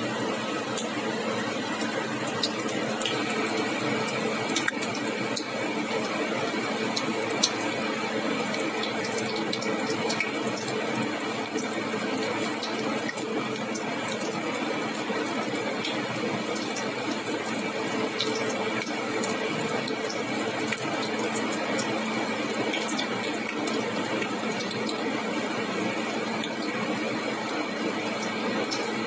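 Gram-flour pakoras deep-frying in hot oil in a wok: a steady sizzle with small pops and crackles.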